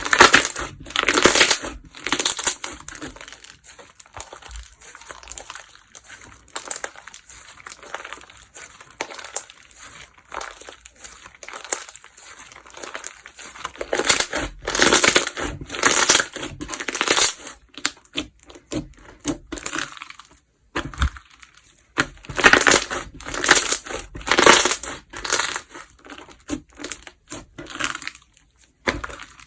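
Slime being squished and pressed by hand, giving crackling, crunchy popping sounds in repeated bursts, with quieter crackle between them.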